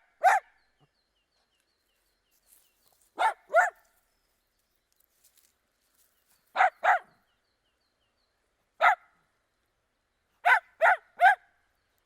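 Dachshund barking in short clusters of one to three sharp barks, several seconds apart: nine barks in all, ending with a run of three.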